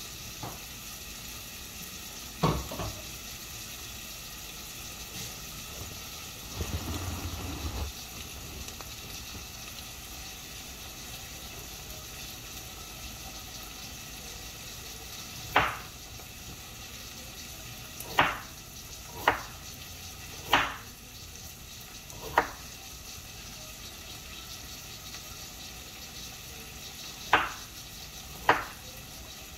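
Kitchen knife cutting through peeled potatoes onto a wooden chopping board: sharp separate knocks, one early and about seven more from halfway on, several close together, over a steady hiss from pots cooking on the stove.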